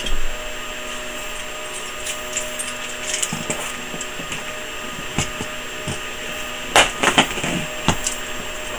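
Cardboard shipping box being handled and opened by hand, with light scrapes and clicks and a cluster of sharper crackles and knocks near the end, over a steady electrical hum.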